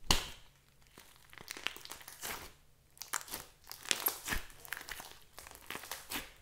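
Thick clay-mixed slime squished and squeezed by hand, with irregular crackling and popping of trapped air. A sharp pop just at the start is the loudest sound.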